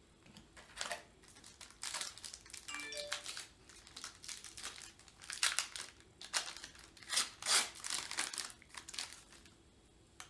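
Wrapper of a basketball trading-card pack crinkling and tearing as it is opened by hand, in a run of irregular rustles and crackles.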